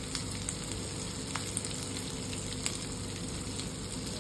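Oil sizzling steadily as green masala paste fries in a mustard-seed and cumin tempering in a stainless steel kadhai, with a few small sharp pops.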